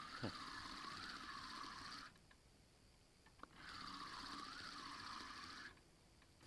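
Faint sound of a spinning reel being cranked to bring in a hooked fish on a feeder rod, in two rhythmic spells of about two seconds with a pause between.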